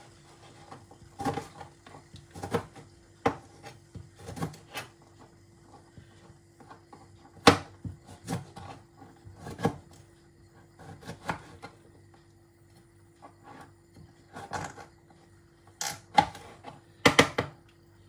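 Kitchen knife chopping citrus into pieces on a plastic cutting board: irregular sharp knocks of the blade striking the board, the loudest about seven seconds in and two close together near the end. A faint steady hum runs underneath.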